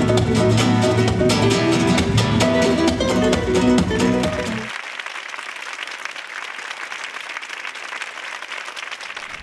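Music for a stage dance performance, with a plucked, guitar-like sound, cuts off suddenly about four and a half seconds in. Audience applause follows as the dancer takes a bow.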